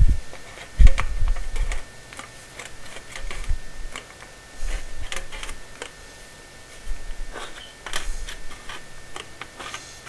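Irregular light clicks and knocks from a hand flue-pipe crimper (dimpler) being handled, with a louder thump about a second in.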